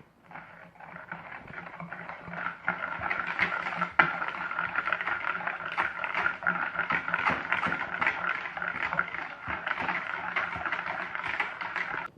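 Hand whisk beating runny chocolate cake batter in a bowl: a fast, steady run of taps and scrapes, with one sharp knock about four seconds in. It stops suddenly near the end.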